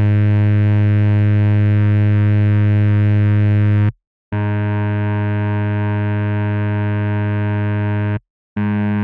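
Low synthesizer note played on a GarageBand touchscreen keyboard as a mock ship's horn: a steady buzzy tone held about four seconds, stopping dead, then sounded twice more after short gaps.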